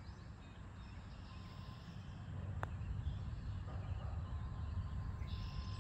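Wind rumbling on the microphone over an open green, with a single light click about two and a half seconds in as the putter strikes the golf ball. Faint bird chirps are in the background.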